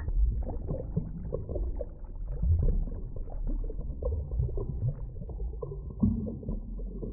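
Muffled water sounds: low rumbling with irregular small gurgles and knocks, dull and cut off above the low range, as if heard underwater.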